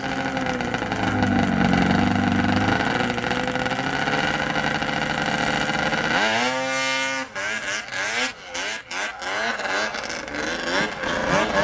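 Snowmobile engine running steadily at the start, then revving hard about six seconds in as the sled launches up the hill, the revs rising and falling through the climb.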